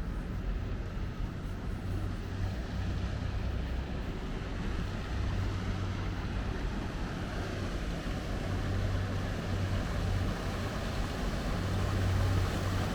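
A steady low engine drone under a wash of broad noise, growing a little louder toward the end.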